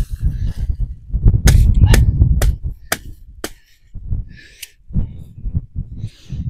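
Metal tent peg being knocked into soft, grassy ground: five sharp knocks about half a second apart. Wind buffets the microphone with a low rumble under the first strikes.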